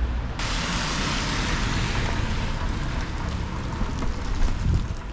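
Rainy outdoor street noise: a steady hiss over a low rumble, setting in abruptly about half a second in.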